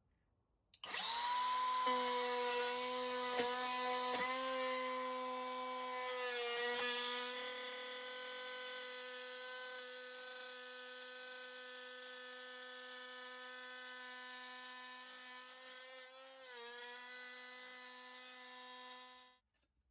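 Handheld electric router running at high speed, a steady high-pitched whine, cutting a groove in the box side to take the base. It starts about a second in, its pitch dips briefly twice as the bit takes load, and it shuts off near the end.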